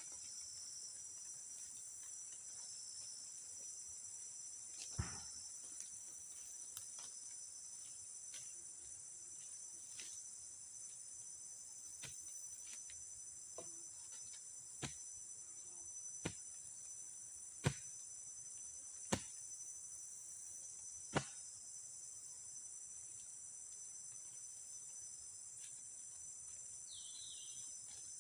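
Steady high-pitched chorus of insects, such as crickets, with a handful of sharp, scattered knocks or taps, the loudest ones in the second half.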